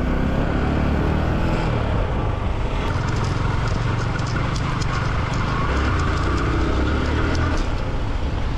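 Yamaha R15 V4's 155 cc single-cylinder engine running steadily at low road speed, mixed with road and wind rumble on a rough gravel road. Scattered faint ticks start about three seconds in.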